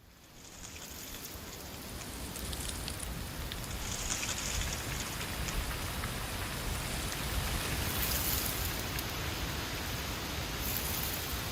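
Strong autumn wind blowing in gusts, a steady rushing hiss over a fluttering low rumble of wind on the microphone, fading in over about the first second.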